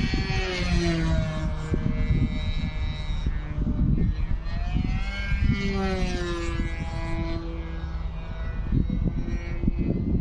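Engine of a 40-size RC aerobatic model airplane buzzing in flight, its pitch sweeping up and down as the plane passes and manoeuvres. Heavy wind buffeting on the microphone runs underneath.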